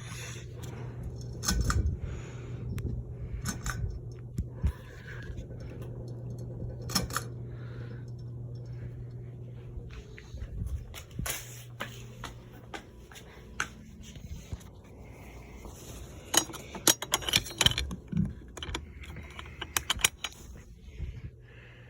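Regency Cayman ceiling fan running, its motor giving a steady low hum that stops near the end as it is switched off to spin down. Scattered light clicks and rattles sound over it, thickest in the second half.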